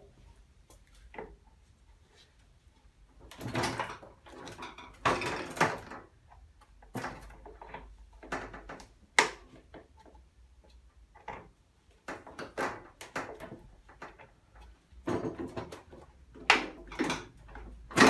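Intermittent knocks, clicks and rattles of hard plastic and metal as the plastic pegs holding a washing machine's shock absorbers are worked loose from the tub mounts.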